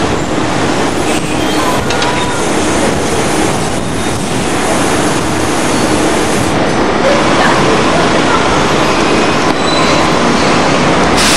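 Trolleybus driving past in city street traffic: a loud, steady wash of road noise, with a few faint thin tones in the later part.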